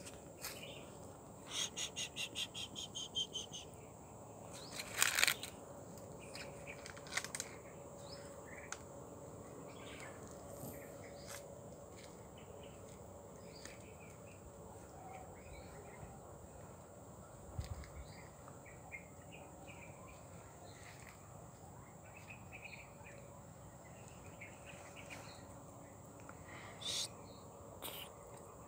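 Outdoor insect and bird ambience: a steady high insect drone, with scattered bird chirps and a quick run of about a dozen repeated notes near the start. A few short rustles or handling noises stand out, the loudest about five seconds in and again near the end.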